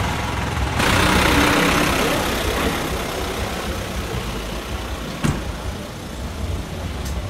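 Road vehicle engine noise: a truck passing close by swells up about a second in and fades, leaving a steady low engine rumble. A single sharp click comes about five seconds in.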